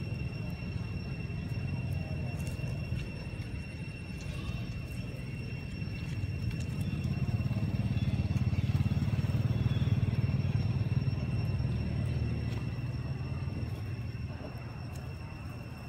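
A low rumble that swells to its loudest about ten seconds in and then fades, over a steady high-pitched whine.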